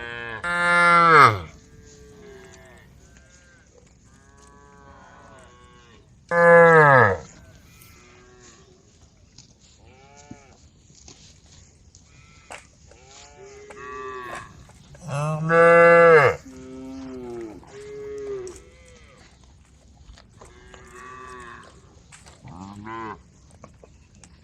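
Cattle mooing, several cows calling back and forth. Three loud moos come about a second in, about seven seconds in and around fifteen to sixteen seconds in, with many fainter calls from other cows between them. Each call drops in pitch at its end.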